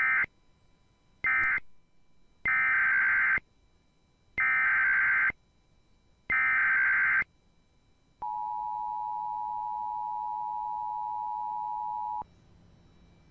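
Emergency Alert System SAME data bursts: the last two short bursts of an end-of-message code, then three longer bursts of a new alert header, each a harsh warbling screech about two seconds apart. Then the EAS two-tone attention signal sounds steadily for about four seconds and cuts off suddenly, announcing a new alert.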